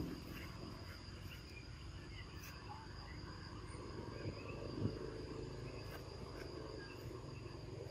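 Insects droning in one steady high-pitched tone over a low background rumble, with a single soft knock about five seconds in.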